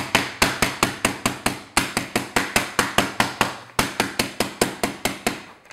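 Wooden rolling pin repeatedly banging on cold butter wrapped in parchment paper on a granite counter, a rapid, even run of sharp knocks about five a second with two brief breaks. The cold butter is being pounded to soften and flatten it into the butter block for laminating croissant dough.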